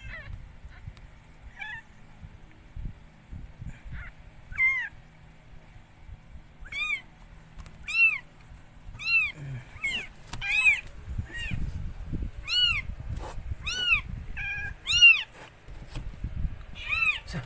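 Newborn kitten mewing: a series of short, high-pitched cries, a few faint ones at first, then coming about once or twice a second from a third of the way in. Low rustling of handling in the box runs underneath.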